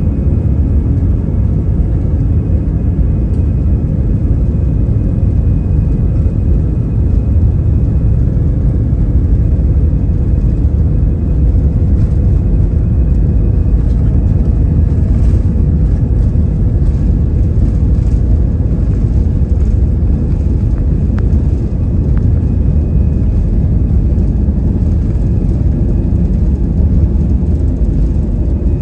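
Airbus A320 airliner on its takeoff roll, heard from inside the cabin by the wing: the jet engines at takeoff thrust and the wheels on the runway make a loud, steady, deep rumble. A few faint steady thin tones sit over it, and light clicks and rattles come through from about halfway in.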